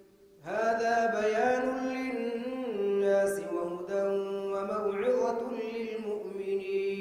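Imam's melodic Quran recitation in tajweed style: after a brief pause, one male voice chants a long passage on drawn-out, sustained notes that step up and down in pitch, amplified through the mosque microphone.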